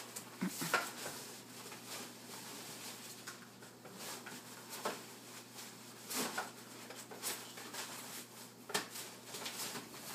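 Fabric carry bag rustling and scuffing in irregular bursts, with scattered soft knocks, as a folded Pack 'n Play play yard is pushed into it.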